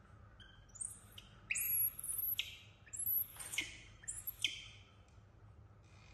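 An infant macaque crying: about four shrill, high-pitched cries in quick succession, each held high and then dropping sharply in pitch, with fainter cries near the end. It is crying for its absent mother.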